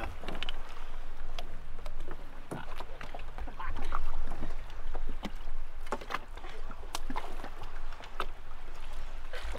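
Water lapping and slapping against an inflatable dinghy and an inflatable paddle board, with irregular knocks and squeaks as the board bumps and rubs against the dinghy's tube, over a steady low rumble.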